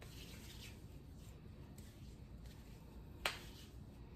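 Faint rustle of hands rubbing together, then one sharp snap about three seconds in.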